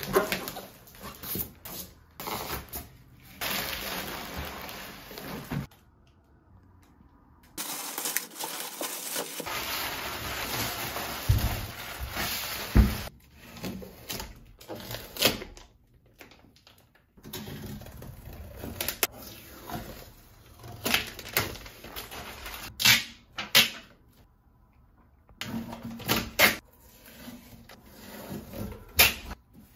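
Packaging being handled: cardboard flaps and packing material rustling and scraping, tape and plastic wrap being pulled off, with scattered knocks and clicks. It comes in short stretches broken by brief silent gaps.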